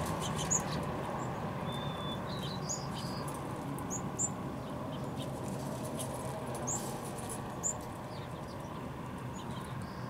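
Sparrows feeding on scattered birdseed: a few short, high chirps and light pecking clicks, over a steady low background rumble.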